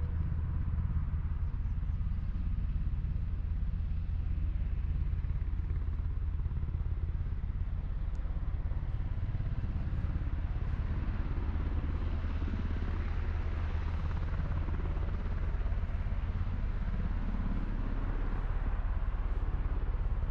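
A steady low rumble, like a running engine, that carries on without a break.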